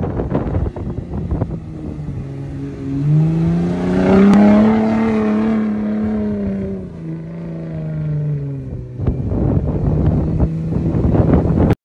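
Ford F-150 Raptor R's supercharged 5.2-litre V8 revving as the truck slides through sand: the engine note climbs about three seconds in, holds, and falls back a few seconds later, then runs steadily. Loud, rough buffeting noise covers the start and the last few seconds, and the sound cuts off suddenly at the end.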